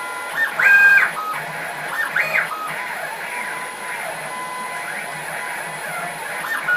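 Stepper motors of a 6040 CNC router whining as the gantry drives a spring-loaded pencil along letter outlines, the pitch rising, holding and falling with each move; the whine goes louder and higher about half a second in and again around two seconds in.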